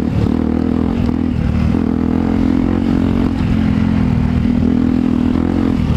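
A small single-cylinder motorcycle engine, the rider's Yamaha WR125, running at steady revs while riding, with wind and tyre noise from a gravel lane.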